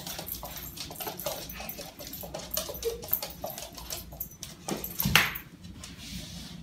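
A small puppy whimpering and yipping, with a louder yip about five seconds in, over many light clicks of its claws on a hardwood floor.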